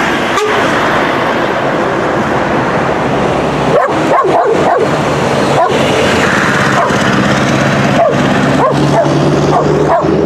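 A small dog barking repeatedly in short barks, over the steady diesel engine and tyre noise of a heavy Scania truck passing close by.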